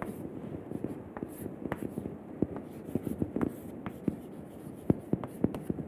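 Chalk writing on a chalkboard: scratchy strokes punctuated by sharp taps as words and arrows are drawn, with the loudest tap about five seconds in.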